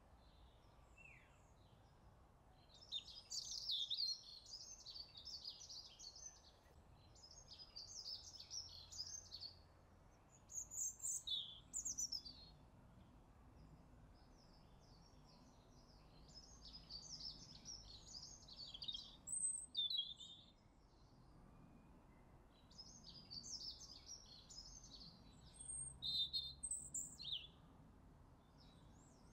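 A small songbird singing long, rapid twittering phrases of several seconds each, with short pauses between them, over a faint steady low background hum.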